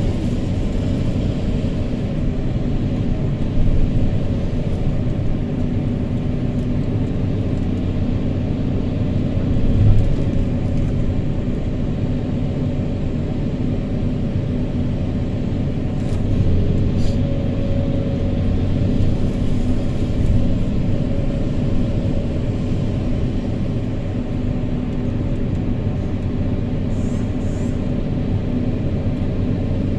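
Hydraulic excavator's diesel engine running steadily under working load while it digs and dumps sand into a dump truck, the engine note swelling a few times.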